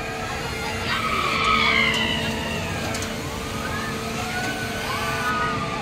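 A children's rotating amusement ride running: a steady hum under drawn-out high squeals that rise and fall, one every second or so.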